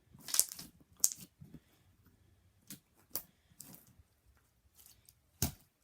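Slime being squeezed and poked by hand, making irregular sharp squelches and pops. The loudest come about half a second in, at one second, and near the end.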